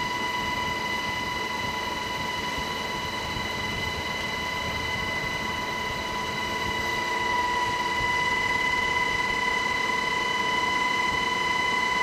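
UH-60 Black Hawk helicopter in flight, heard from inside the cabin with the door open: a steady rush of rotor and engine noise with a high, steady whine over it. It grows a little louder about seven seconds in.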